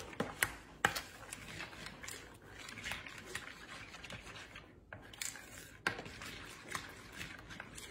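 A spoon stirring thick pudding and canned pumpkin in a bowl: soft squelching with scattered sharp clicks of the spoon against the bowl.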